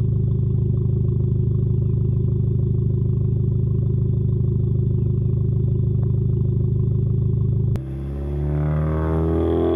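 A Hyundai Genesis Coupe 2.0T turbo four-cylinder with a catless straight-pipe exhaust (ISR downpipe, test pipe, O2 housing and Race catback) idling steadily at its tailpipes. About eight seconds in, the sound changes to the car pulling away, its engine pitch climbing and falling.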